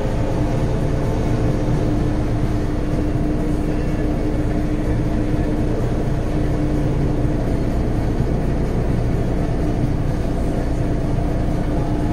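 Semi-truck engine idling, heard from inside the cab: a steady low rumble with an even hum over it.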